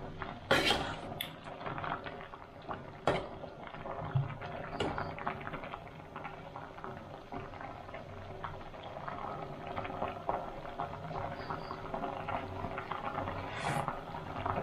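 Squid adobo with vinegar boiling in an aluminium pot, a steady bubbling and sputtering. A few sharp clinks of the metal spatula against the pot come about half a second in, about three seconds in, and near the end.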